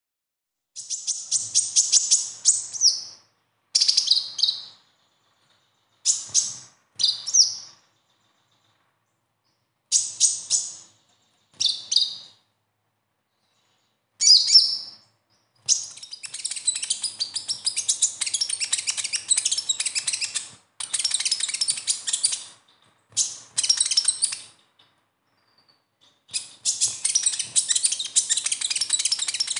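Male kolibri ninja (Van Hasselt's sunbird) singing its besetan song. High, very fast, rattling chirps come in short bursts with silent pauses, then in longer unbroken runs through the second half.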